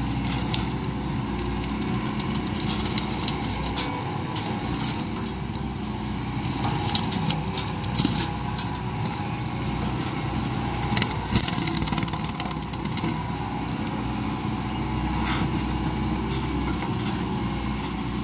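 Hitachi Zaxis 110 excavator's diesel engine running steadily while its hydraulic shredder head grinds chipped oil palm trunk debris on the ground, with scattered cracks and knocks of wood and debris being chewed up.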